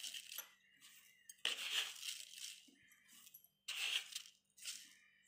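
A few short gritty rustles as spoonfuls of granulated sugar are tipped from a plastic spoon onto flour in a bowl, the spoon scraping and the grains pattering into the flour.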